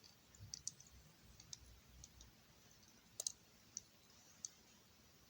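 Faint, scattered clicks and light taps of plastic Lego pieces being handled and fitted together, a cluster of sharper clicks about three seconds in.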